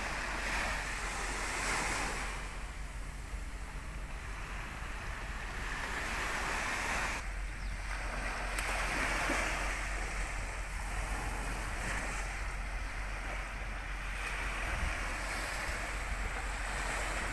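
Small waves washing onto the shore, each wash swelling and fading over a few seconds, with a steady low rumble of wind on the microphone.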